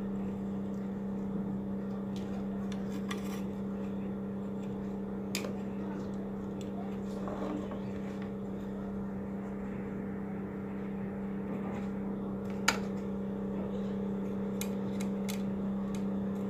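A steady low hum with scattered light clicks as fingers work small parts on a CRT TV circuit board, and one sharp click a little past the middle.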